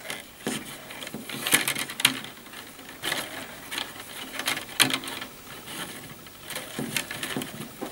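Rattan-core cane strands scraping, rustling and clicking against the upright cane stakes as they are woven by hand in a three-rod wale. The sound comes as short, irregular clicks and rubs.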